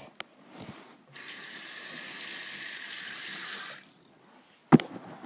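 Bathroom sink faucet running into the basin for about three seconds, then shut off. A single sharp knock follows near the end.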